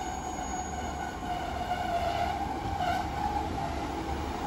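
British Rail Class 150 Sprinter diesel multiple unit drawing into a platform and slowing, with a low engine rumble and a high whine that dips slightly in pitch and grows louder as it nears.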